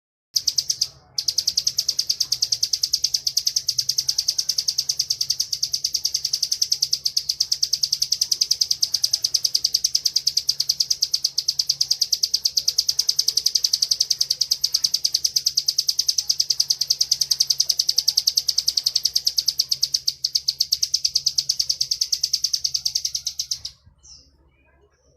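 Bar-winged prinia (ciblek) singing its 'ngebren' song: one very fast, buzzing trill held for over twenty seconds, with a short break about a second in, and then stopping abruptly near the end.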